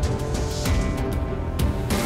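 Intro theme music with a steady beat.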